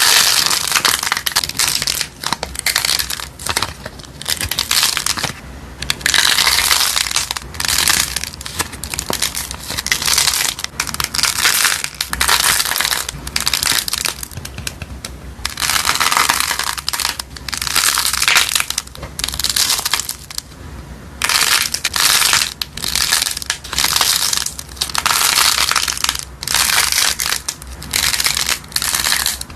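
Dry soap being crushed: dense runs of crisp, crunchy crackling in bursts of a second or two, with short pauses between.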